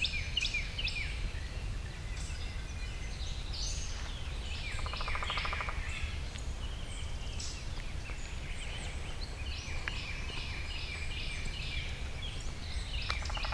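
Several wild birds singing and calling in woodland, with a short buzzy call about five seconds in, over a steady low rumble.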